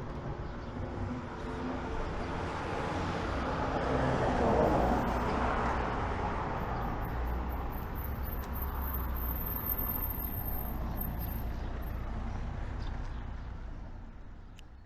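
Road traffic: a motor vehicle's engine and tyre noise swells to its loudest about four to five seconds in, stays steady, then fades out near the end.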